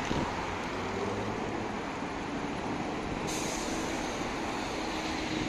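Street traffic: cars driving past, a steady wash of engine and tyre noise with a faint engine hum.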